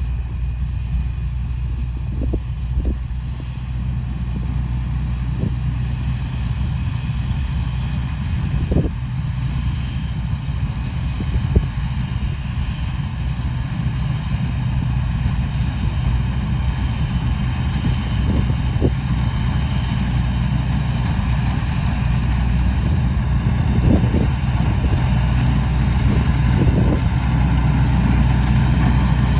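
Rice combine harvester's engine running steadily under load, with a few short knocks now and then, growing slightly louder toward the end.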